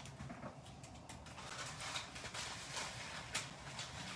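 Dry farro grains pattering in a quick, irregular crackle of small taps as they are poured from a bag into a pot of boiling water.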